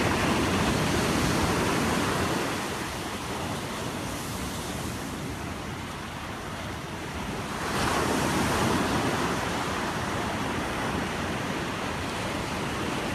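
Ocean surf washing up on a sandy beach: a wave surges in at the start and another about eight seconds in, each fading back into the steady wash of water.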